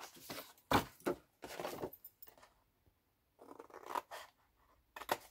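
Scissors cutting short slits into heavy double-sided paper along its fold lines, a series of separate snips. A few come in quick succession, then after a pause of about a second and a half a few more follow, the last near the end.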